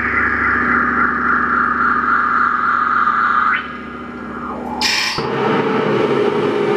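Experimental noise-music drone from an effects-pedal rig: a loud, steady, buzzing hum with a hissing band above it. About three and a half seconds in it drops away, a short burst of high hiss flares, and a new, lower drone takes over.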